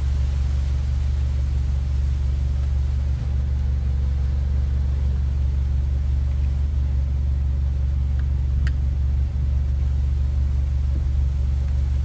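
Steady low machine hum, engine-like, with no change in pitch or level; a single faint click about two-thirds of the way through.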